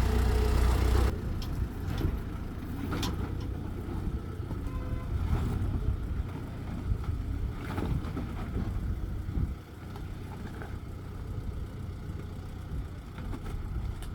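Off-road vehicle's engine running as it drives over rough ground, loudest for about the first second and then quieter, with occasional knocks.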